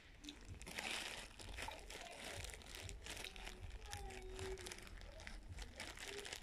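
A plastic bag of cornstarch squeezed and handled close to the microphone: a steady run of crinkling and crackling from the bag and the packed powder inside it, starting about a second in.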